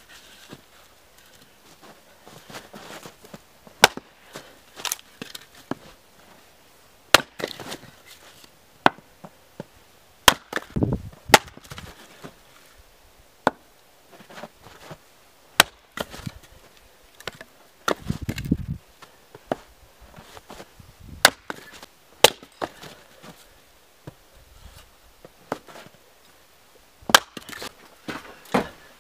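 Hatchet chopping and splitting firewood logs on a chopping block: sharp, separate wooden cracks at an uneven pace, one to three seconds apart, with a duller low thump about two-thirds of the way through.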